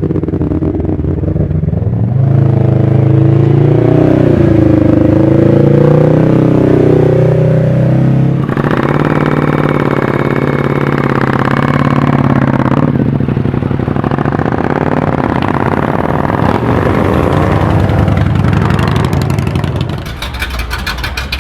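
Motorcycle engines running loudly, their pitch rising and falling as they rev and move.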